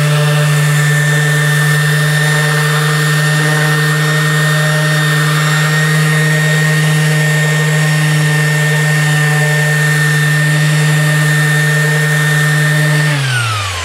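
Festool ETS random orbital sander, fitted with 180-grit paper, running steadily against wood: a steady hum with a high whine. Near the end it is switched off and its pitch falls as it spins down.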